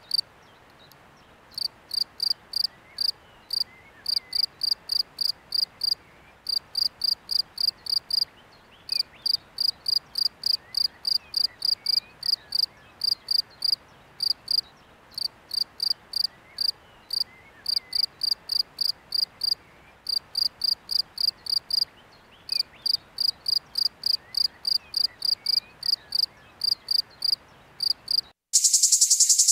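A cricket chirping: short, high-pitched chirps repeated about four times a second, in runs of several seconds with brief pauses. Near the end the chirping stops and a louder, dense buzzing starts.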